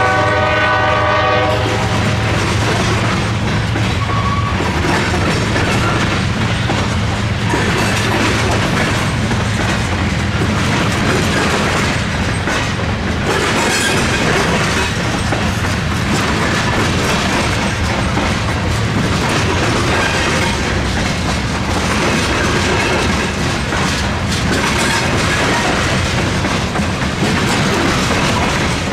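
Freight locomotive air horn sounding a chord that cuts off about two seconds in, then a CSX tanker train rolling past with a steady rumble and wheels clattering over the diamond crossing.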